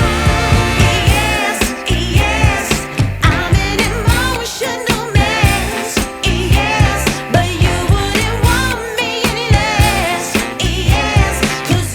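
Background music: a song with a steady beat and a singing voice.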